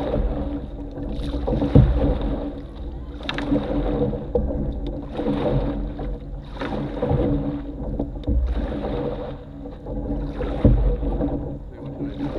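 Canoe being paddled: water swishing and lapping along the hull, with an irregular knock every second or few, heard close to the bow.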